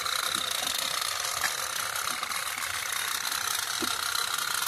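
Candle-heated pop-pop toy steam boats running in a tub of water, making a rapid, steady ticking buzz. The sound comes from the water in their boiler pipes repeatedly flashing to steam and being pushed out.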